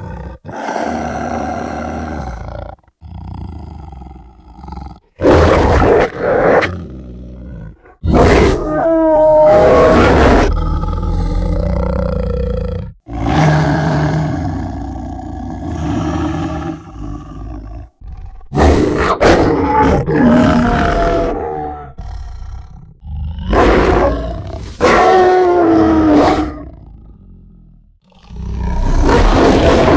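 Demon wolf monster sound effect: a string of loud, drawn-out roars, each a few seconds long with short breaks between, some with a wavering, sliding pitch.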